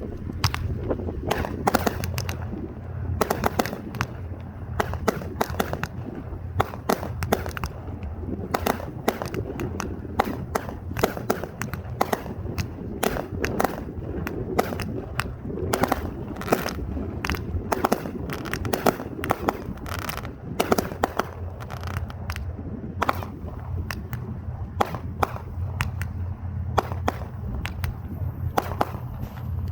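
Fireworks going off: a long, irregular string of sharp bangs and pops, several a second, over a steady low hum.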